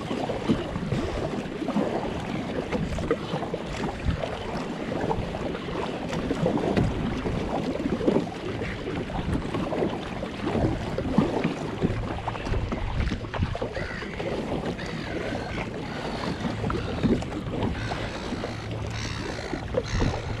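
Water sloshing and splashing against a moving kayak's hull, with wind on the microphone.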